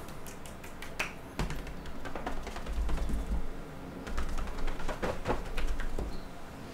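Light, irregular taps and pats of hands on the body and legs. A low rumble from the body's movement runs through the middle of the stretch.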